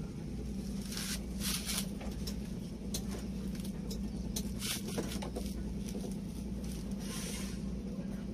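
Scraping, rustling and light knocks as a prop is wedged against a car's brake pedal to hold it down, over a steady low hum.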